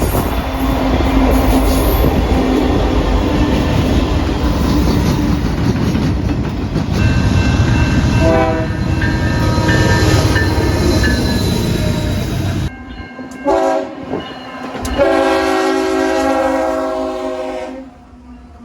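Train horn sounding over the loud rumble and wheel clatter of a passing train. The rumble stops abruptly about two-thirds of the way in. A short horn blast follows, then a longer horn chord of about three seconds that stops near the end.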